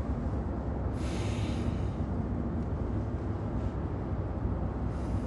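Steady low road and engine rumble inside the cabin of a moving Audi sedan, with a brief hiss about a second in and another near the end.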